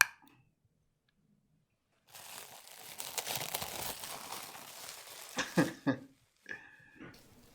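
Packaging crinkling and crumpling for about three seconds, starting about two seconds in, followed by a few short knocks.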